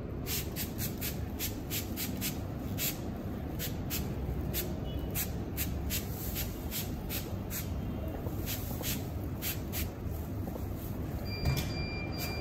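Barber's scissors snipping hair in a quick, irregular run of about two to three snips a second, stopping about ten seconds in, over a steady low room hum. A faint thin tone sounds briefly near the end.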